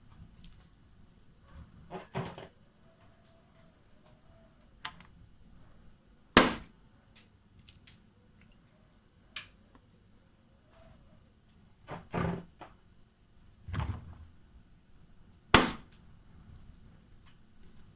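Balloons popping one after another at irregular intervals: about eight sharp pops, the loudest about six and fifteen seconds in, with some duller, quieter pops between.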